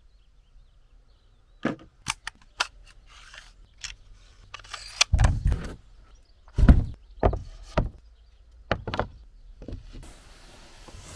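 Irregular knocks and clatter of hands at work on a wooden worktable: an air hose coupled to a pneumatic brad nailer, the nailer set down, and OSB drawer panels set in place, with two heavier thuds midway. A steady hiss comes in near the end.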